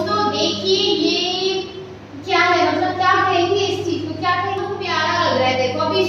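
Children singing a song together, unaccompanied, in long held notes with a short break about two seconds in. A steady low hum runs underneath.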